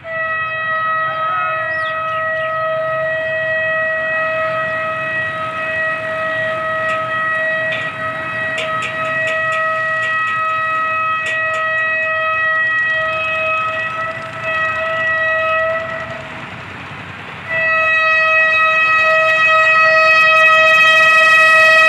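Air horn of a Pakistan Railways HBU-20 diesel-electric locomotive, held in one long steady blast as the express bears down on people at the track. The horn breaks off briefly near the end and comes back louder as the train draws close.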